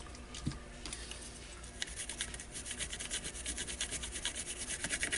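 Rapid scratchy rubbing from handling a small circuit board and its parts, a quick run of short strokes that thickens from about two seconds in until near the end.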